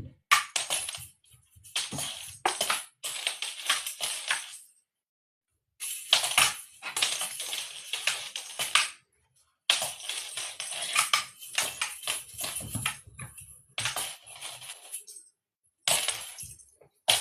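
Irregular bursts of jingling and rattling from a cat toy being batted about, each lasting from half a second to a few seconds with short silent gaps between.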